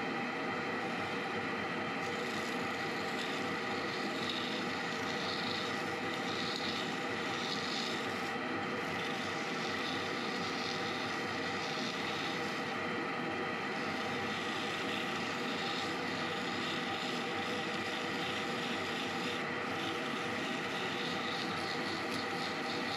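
Small lathe motor running steadily with a whine, while sandpaper is held against a wood-inlay ring turning on the lathe mandrel, adding a hiss that comes and goes as the paper presses on and lifts off.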